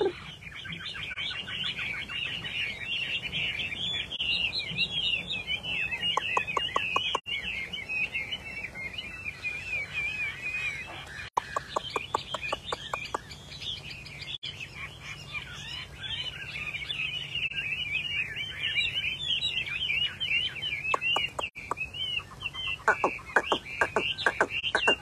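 Chinese hwamei (họa mi) singing a long, continuous warbling song of quick, varied whistled notes, broken several times by fast trills of rapidly repeated notes.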